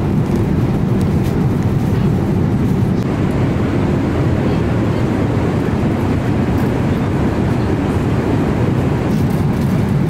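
Steady low rush of cabin noise inside a Boeing 777-300ER in flight, the airflow and engine noise heard from an economy seat.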